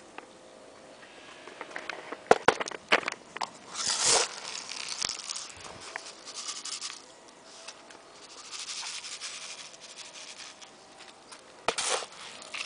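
Close rustling and pattering noises with sharp clicks: a quick run of clicks a couple of seconds in, a loud rustle about four seconds in, more rustling later, and a sharp knock near the end.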